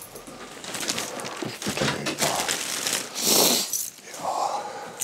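Rustling and crinkling of plastic bags and clutter being handled, with scattered small clicks and knocks and a louder rustle about three seconds in.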